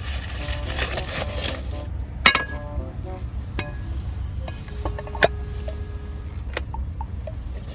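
Metallic clinks from a stainless steel camping pot and its wire handles being handled on a portable cooktop: four sharp clinks, some with a brief ring, the loudest about two seconds in. A frying hiss cuts off about two seconds in, over a steady low hum.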